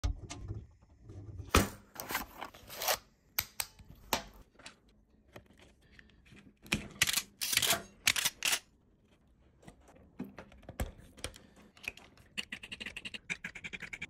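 Clicks, snaps and scrapes of electricians' hand tools: an automatic wire stripper clamping and pulling insulation off a wire, and a screwdriver working terminal screws. There are several clusters of sharp snaps and short scrapes, and a run of quick ticks near the end.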